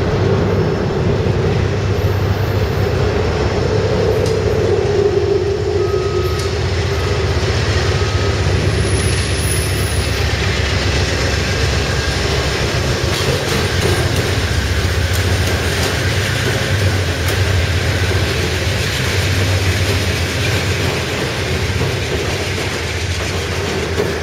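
Amtrak Sunset Limited passenger train running past on the rails: a loud, steady rumble of engine and wheels that holds for the whole time.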